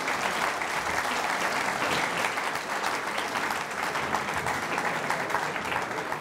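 Audience applauding, a steady dense clapping from a seated crowd that starts to fade near the end.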